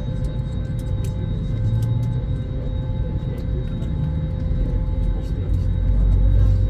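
Airbus A321neo cabin noise on the ground: a steady low rumble with a faint steady whine and a few small clicks, growing louder about five and a half seconds in.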